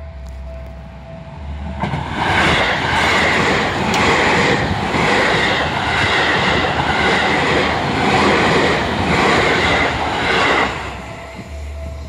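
Seibu Railway electric commuter train passing close by at speed, its wheels clattering in a repeating rhythm from about two seconds in until near the end. The level crossing bell rings steadily before the train arrives and again after it has gone by.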